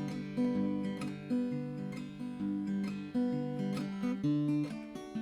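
Background music: acoustic guitar picked and strummed in a gentle, steady pattern.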